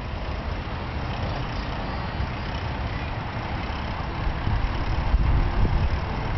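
Wind buffeting the microphone of a moving bicycle rider, with the rolling noise of bicycle tyres on an asphalt path; it grows louder and more uneven near the end.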